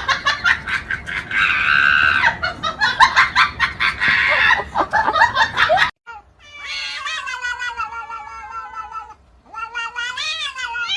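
A cat yowling in two long, drawn-out meows in the second half, after a busy, rapid clattering stretch in the first half.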